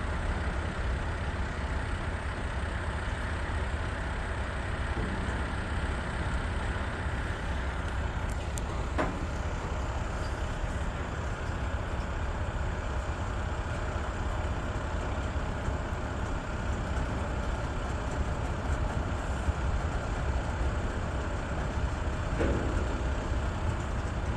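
Long freight train rolling slowly past, a steady rumble of wheels on rail with no breaks, and a couple of faint ticks along the way.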